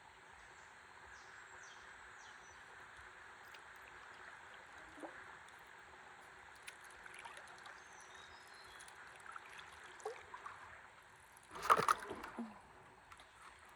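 River water lapping and trickling steadily around a stand-up paddleboard, with a few small knocks and a brief, much louder burst of noise near the end.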